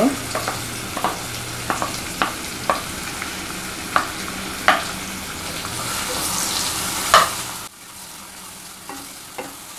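Chopped onions sizzling as they go into hot oil in a kadhai, with sharp clicks of a wooden spatula knocking on the plate and pan as the onions are scraped in and stirred. The sizzle swells near the end, then drops suddenly to a quieter hiss.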